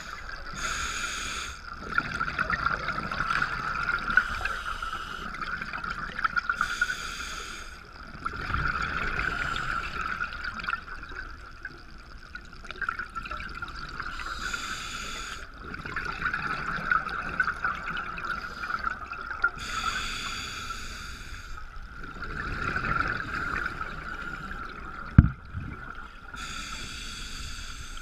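A scuba diver breathing through a regulator, heard underwater. A hiss comes about every five to seven seconds, with bubbly rushing of exhaled air between, all over a steady high-pitched hum.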